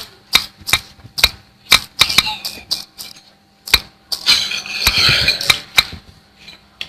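Irregular sharp clicks and clinks of small hard objects knocking, about a dozen spread unevenly, with a noisier, rustling stretch around the middle.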